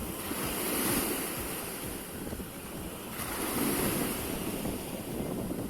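Sea surf washing onto the beach, swelling twice as waves come in, with wind rumbling on the microphone.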